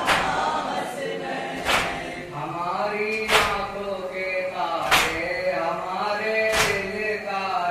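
A group of men chanting a Shia noha (Muharram lament) in unison, with a loud, sharp hand strike on the chest (matam) about every second and a half, keeping time with the chant.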